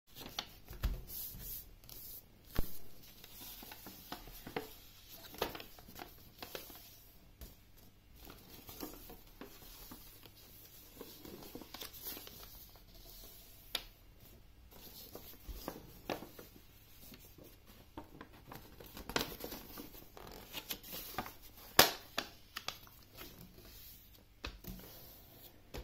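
A sheet of white paper being folded and creased by hand on a cloth-covered table: intermittent rustling and sliding with sharp creasing strokes, the loudest a crisp stroke near the end.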